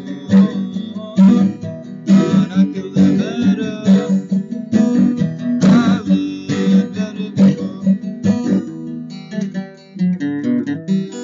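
Steel-string acoustic guitar strummed in a steady rhythm, its chords ringing between strokes, with lighter, quicker strokes in the last few seconds.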